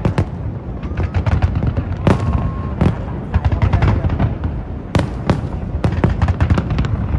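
Fireworks display: a dense, irregular barrage of bangs and crackles over a continuous low rumble, with the loudest booms about two and five seconds in.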